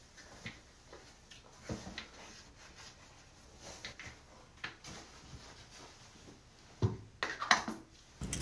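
Faint rustling and handling noises from someone getting dressed and handling small objects, with a few louder knocks near the end.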